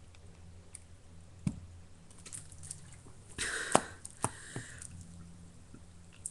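Wet mouth and throat clicks, with a short rush of air about three and a half seconds in, as a person swallows and gulps air to build up a burp.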